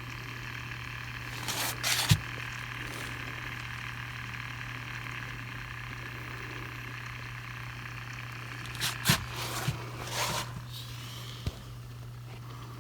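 Steady low hum with a constant hiss, broken by short bursts of handling clatter and rustle about two seconds in and again around nine to ten seconds, then a single click.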